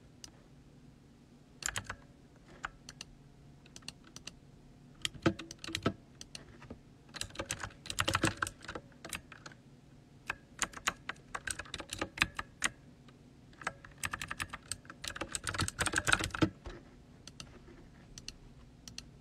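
Typing on a computer keyboard: bursts of rapid key clicks with short pauses between them, going quiet near the end.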